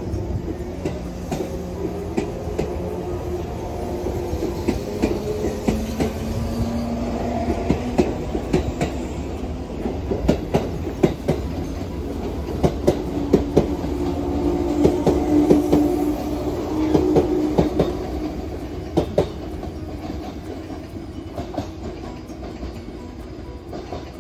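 A train passing on the rails, its wheels clacking sharply over rail joints over a steady rumble and a low hum. The sound builds, peaks past the middle, then fades as the train moves away.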